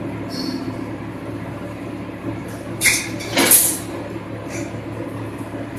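Fence mesh bending machine running with a steady low hum. About three seconds in come two short hissing bursts close together, the second the louder.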